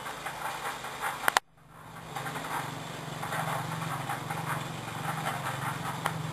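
A small engine running steadily outdoors. The sound cuts off abruptly about a second and a half in, then comes back with a steady low hum.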